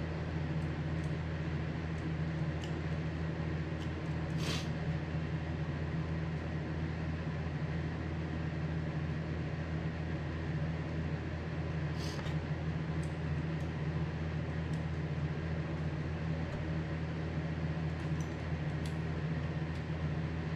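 A steady low machine hum, like a shop fan or heater running, with a few faint small clicks of hand work on a carburetor's throttle linkage, the plainest about four seconds in and about twelve seconds in.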